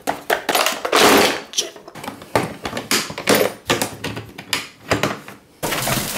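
Hard plastic toolboxes being handled and shut: a quick string of clicks, knocks and rattles as lids close and latches snap. A longer clatter of loose tools about a second in.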